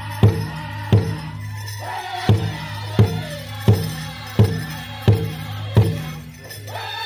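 Powwow big drum struck by the drum group in a steady beat, about three strikes every two seconds, for a men's chicken dance song. The beat stops about six seconds in.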